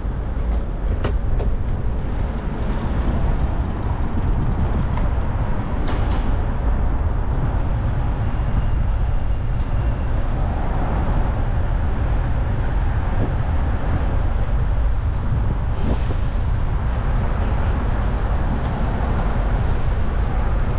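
Steady low rumble of wind noise and city street traffic heard from a moving bicycle, with a few brief clicks and hisses.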